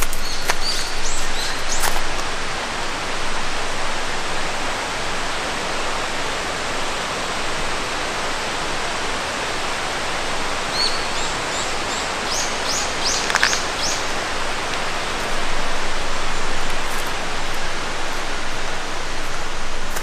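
Steady rush of a flowing stream, with a bird giving a quick series of high chirps a little past halfway.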